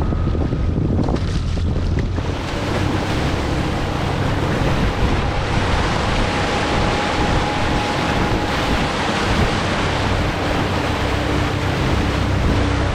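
Steady, loud wind buffeting the microphone, mixed with waves and water washing around a small boat.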